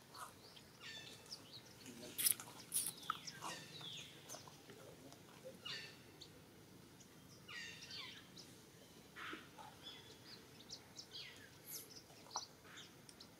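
Scattered short, high-pitched animal calls: chirps and quick falling squeaks, some in fast little runs, loudest a couple of seconds in, over a faint steady outdoor hum.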